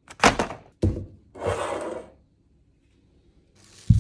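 Clear plastic food trays being handled: a few sharp taps and knocks in the first second, then a scraping, crinkling rub lasting about half a second.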